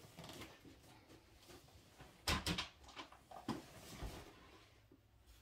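Handling noise from objects being moved on a work surface: a few sharp clicks and knocks, the loudest a close pair a little past two seconds in, over faint steady room noise.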